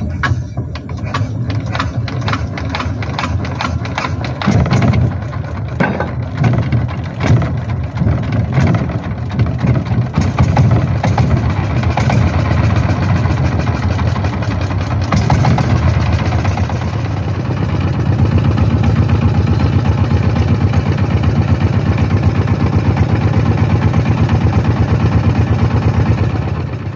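Inboard engine of a wooden fishing boat running under way with a loud, rapid chugging. The chugging is uneven at first and settles into a steady, even beat in the second half.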